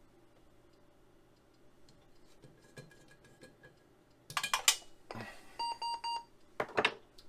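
Clicks and clatter of hands working inside an open Apple Lisa computer case, then four quick electronic beeps of one steady tone about five and a half seconds in, followed by another clatter.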